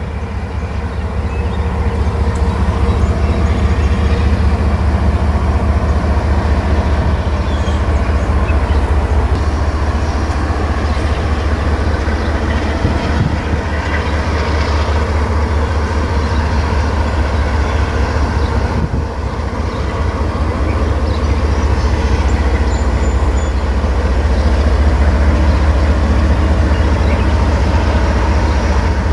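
Norfolk Southern diesel-electric locomotives hauling a double-stack intermodal train past, their engines giving a steady low drone.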